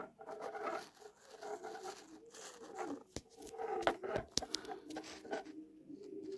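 Clicks and taps of a laser bore sighter being handled and fitted onto an arrow on a worktop, the sharpest a few seconds in. Under them runs a faint wavering whine.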